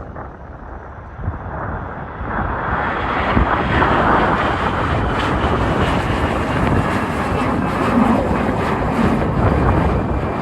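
Airliner engines passing close by, growing louder about two seconds in and staying loud, with a faint high whine over the rush.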